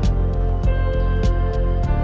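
Background music: sustained instrumental tones over a steady beat.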